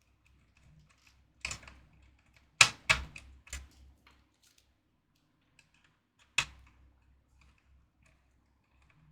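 Hand assembly of an outdoor miner enclosure: a few sharp clicks and knocks as hard parts are handled and fitted. There is one click about a second and a half in, a quick cluster of three or four a second later, and another knock past the middle.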